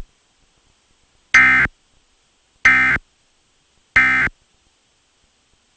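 Emergency Alert System (SAME) end-of-message code: three short, identical bursts of buzzy digital data tone, about a second apart. They mark the end of the severe thunderstorm warning broadcast.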